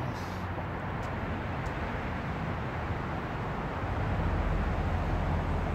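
Steady low rumble of distant traffic, swelling slightly about four seconds in.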